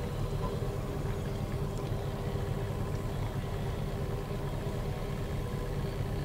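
An engine idling steadily: a low rumble with a faint steady hum over it.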